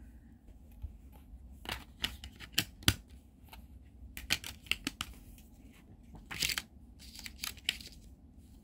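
Plastic disc cases and their paper inserts being handled: irregular clicks and taps with short scratchy rustles, the biggest around the middle.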